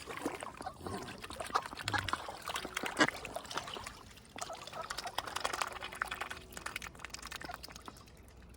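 Swan feeding at the water's surface: bill dabbling and snapping up food, with repeated clicks and splashing, dripping water.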